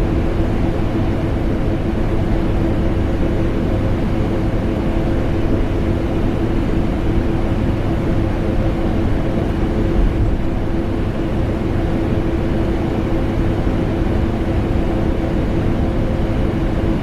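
Vacuum cleaner motor running continuously with an air conditioner: an unbroken machine hum and rushing air with a steady tone, used as white noise for sleep.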